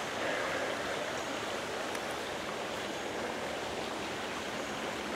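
Creek water flowing steadily, an even, unbroken rush.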